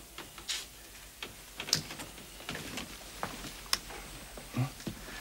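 Footsteps and light knocks in a quiet room: irregular short clicks, roughly one or two a second, with two sharper ones, one near the middle and one about three-quarters through.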